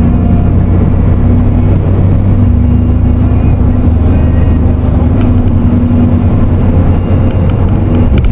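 Car engine and road noise heard from inside the cabin while driving at steady speed: a loud low drone with tyre rumble, its pitch shifting about two and a half seconds in.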